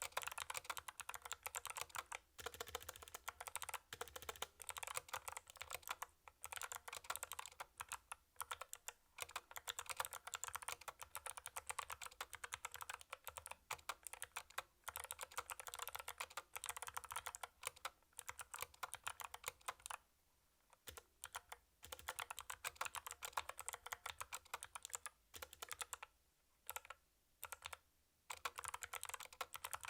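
Fast typing on a mechanical keyboard with Kailh Box White clicky switches: a dense, crisp clatter of key clicks in bursts, broken by short pauses, the longest about two-thirds of the way in.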